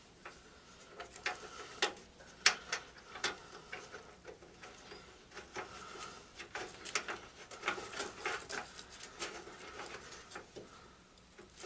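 Irregular small metallic clicks and taps of bolts, lock nuts and hand tools being handled and fitted on a garden tractor's steering box, a few sharper clinks about two to three seconds in.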